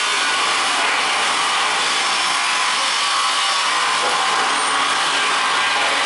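Steady rushing hiss at an even level, with no distinct sounds standing out.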